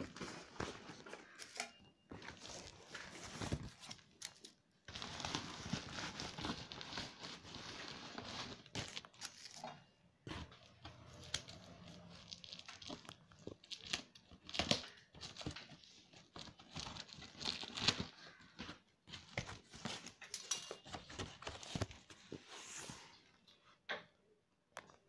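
Scissors cutting and tearing the packing tape on a cardboard box, with the flaps being pulled open and plastic wrap crinkling, broken up by scattered clicks and scrapes.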